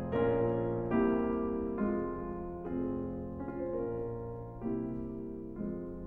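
Background piano music: slow chords struck about once a second, each one fading before the next.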